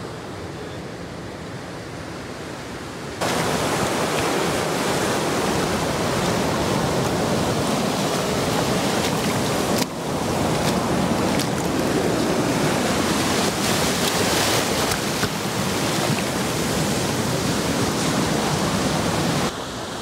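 Shallow water rushing and foaming over rocks close to the microphone: a loud, steady rushing noise that starts suddenly about three seconds in and drops away just before the end. Before it, fainter surf and wind.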